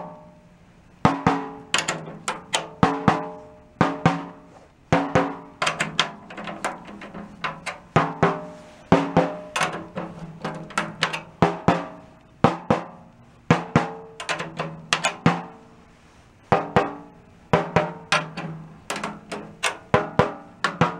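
A coated Remo Ambassador batter head on a 1938 Leedy Broadway Parallel snare drum, tapped by hand in quick clusters of several taps with short pauses between. Each tap rings with a short pitched tone: the head being tuned up by ear.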